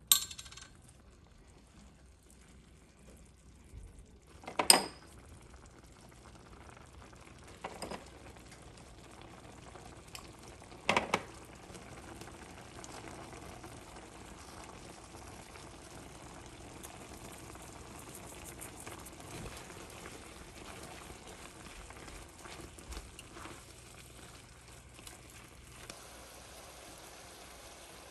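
Cooking in a pan: a few sharp knocks and clinks of utensils or cookware, then a steady sizzle of food frying that sets in about twelve seconds in.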